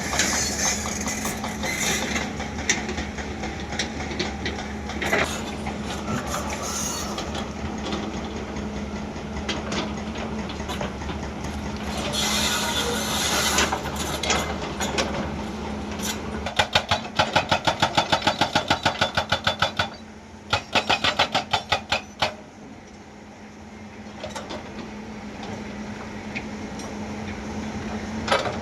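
Hyundai excavator's diesel engine running steadily while its hydraulic breaker hammer pounds rock in rapid runs of about seven blows a second, two runs in the middle and another starting at the very end.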